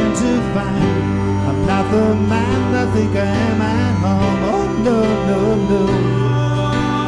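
Live band playing a country-style passage on acoustic guitar and keyboard, with held low notes under a wavering melody line and no words sung.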